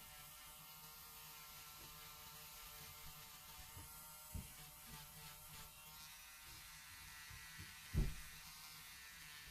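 Electric nail drill running with a faint, steady whir, with a few soft knocks from handling, the loudest about eight seconds in.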